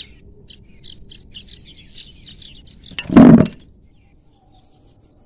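Small birds chirping over and over in short high notes, then about three seconds in a loud bang as a propped-up plastic basin trap drops onto the concrete, catching the birds underneath. Faint chirps follow.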